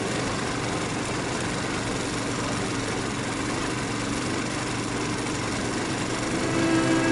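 Small vehicle engine running steadily while driving over a bumpy dirt track, with road and wind noise; about six seconds in the engine gets louder.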